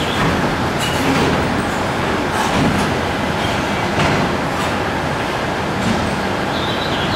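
Freight train container wagons rolling past, a steady rumble of steel wheels on rail with irregular clicks as the wheels cross rail joints. A faint high wheel squeal comes in near the end.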